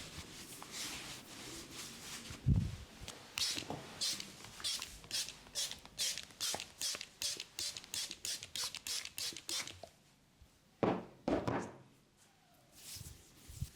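Barber's hands working over a person's head and hair in a head massage: a quick run of short rubbing and tapping strokes, about three a second, then a short pause and two louder strokes near the end.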